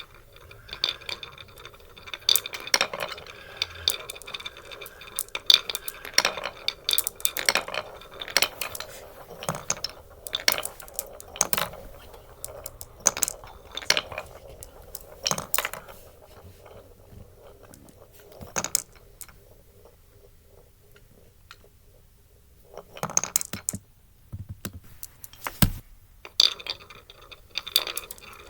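Marbles running through a Cuboro wooden marble run with funnels: a steady rolling sound with many sharp clicks and clacks as they drop and hit the wooden track. A quieter spell comes about two-thirds of the way in before the clicking picks up again.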